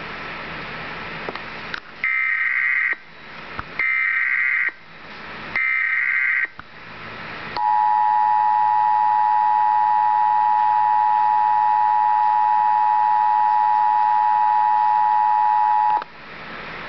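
Emergency Alert System tones over a steady hiss: the SAME data header, three bursts of warbling data tones about a second each, then the two-tone EAS attention signal held for about eight seconds before cutting off sharply.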